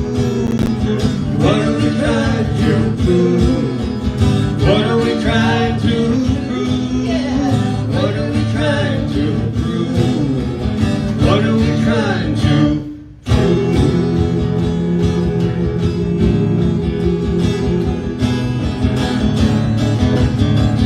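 Instrumental break of a live acoustic country-folk song: guitar accompaniment with a melodic lead line weaving over it. The sound drops out abruptly for a moment about two-thirds of the way through, then the music picks up again.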